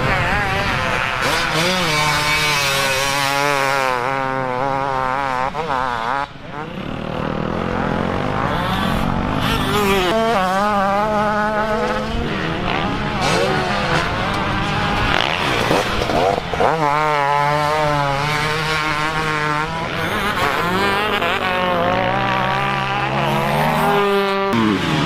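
Motocross bike engines revving on the track, the pitch climbing and falling again and again as riders work the throttle, with a short drop-off about six seconds in.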